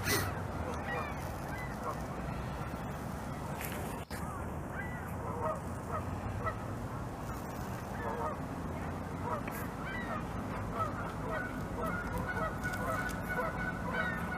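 Geese honking over and over, many short calls overlapping, over a steady low background rumble.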